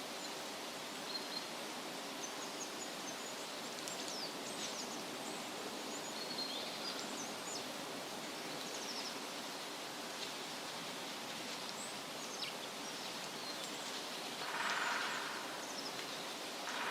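Forest ambience: a steady rushing hiss with small birds chirping briefly and high-pitched throughout. Two short swells of rustling come near the end.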